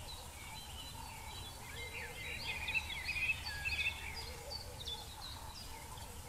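Wild birds chirping and calling in woodland, a cluster of quick, high chirps about two to four seconds in. A faint, steady low rumble runs underneath.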